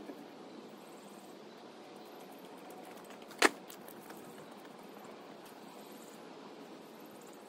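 A single sharp bang about three and a half seconds in, from an item being loaded onto the back of a pickup truck, over a faint steady background hiss.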